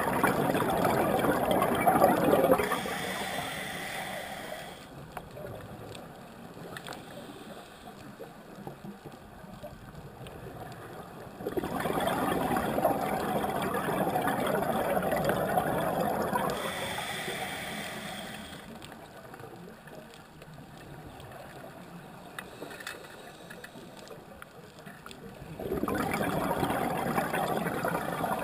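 Scuba breathing through a regulator underwater: bubbling exhalations about every 12 to 13 seconds, the first two each followed by a short hiss of the regulator, with quieter pauses between breaths.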